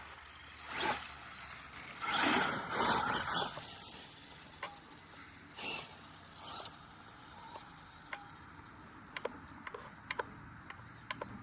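Arma Mojave EXB RC truck driving in short bursts over rough ground, its tyres throwing up dirt and gravel, with a handful of sharp clicks and ticks near the end.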